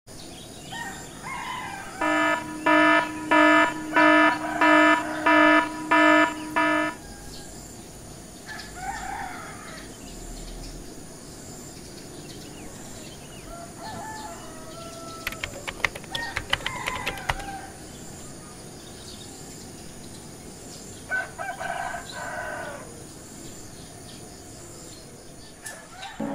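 An alarm beeping seven times in an even rhythm over about five seconds, followed by quieter short chirps and a few light clicks.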